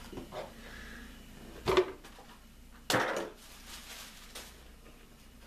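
Cardboard box being handled and rummaged through: a sharp knock a little under two seconds in, then a short papery scrape as a cardboard card is pulled out, with a few lighter handling clicks.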